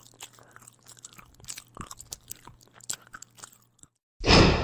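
A person chewing and crunching dry food: faint, irregular crunching clicks over a faint low hum. About four seconds in, after a brief silence, music comes in loudly and suddenly.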